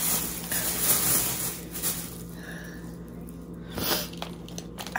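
Rustling and handling noises, loudest in the first couple of seconds, as socks are put into a bag, with a few small clicks later.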